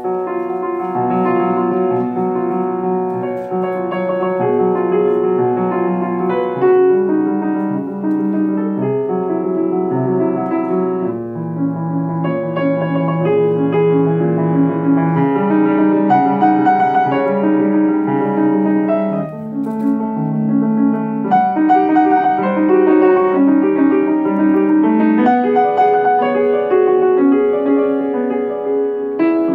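Solo grand piano playing a continuous passage of full chords with many notes sounding together, the bass line shifting under changing upper notes.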